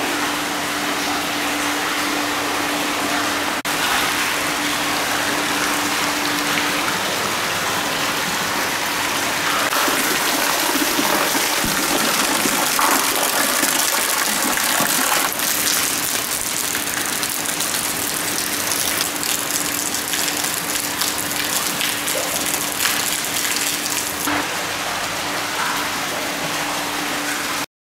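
Hot spring water pouring from spouts into a stone bath, a steady splashing rush that cuts off suddenly near the end.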